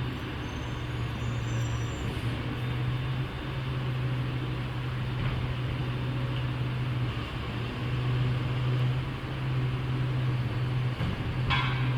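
A steady low motor hum under an even rushing noise, with a short higher-pitched sound near the end.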